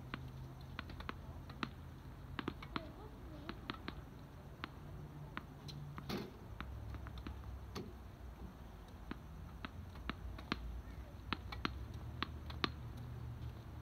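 Tennis balls being struck and bouncing: a string of sharp, irregularly spaced pops and taps over a steady low hum.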